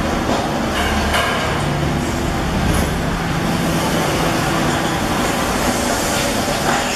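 Steady workshop machinery noise: a low hum under a broad, even rush, with a couple of faint clinks.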